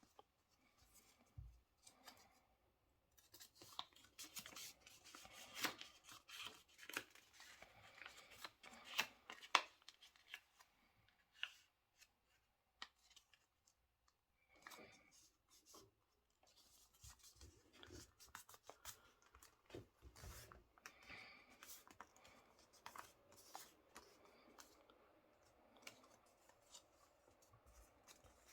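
A sheet of paper being folded and creased by hand: faint, irregular crinkles, rustles and sharp little snaps, busiest in the first ten seconds and sparser after.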